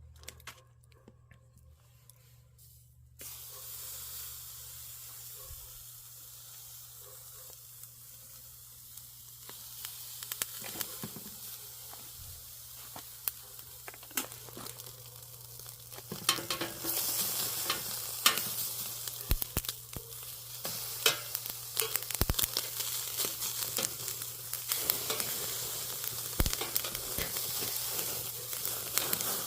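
Chicken frying in oil in a cast-iron cauldron (gamasot), starting about three seconds in. The sizzle is steady at first, then grows louder, with dense crackling and popping, from about halfway through.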